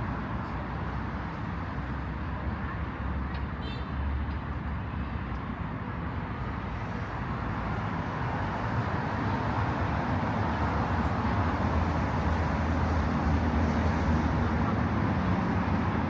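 Road traffic on a city street: a steady rumble of passing cars that swells louder in the second half as vehicles come close.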